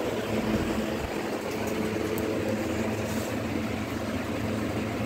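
Steady mechanical hum with an even whooshing noise, the sound of an electric fan running in the room.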